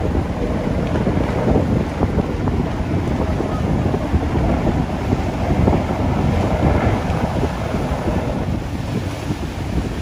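Strong wind buffeting the microphone in gusts, with choppy waves breaking on the shore.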